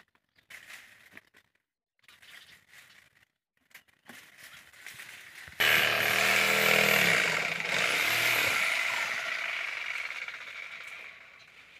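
Dry date palm fronds rustling and crackling in short bursts. About halfway through, a small engine-driven cutting machine comes in suddenly and loudly, its pitch sliding down and then up, and it fades gradually toward the end.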